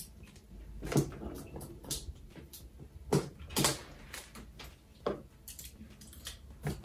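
Packaging being handled and opened: scattered short knocks and rustles, several separate ones a second or so apart.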